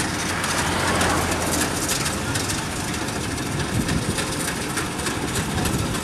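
Rice combine harvester running steadily while it cuts through the paddy: an even, dense engine-and-machinery din with a low hum underneath.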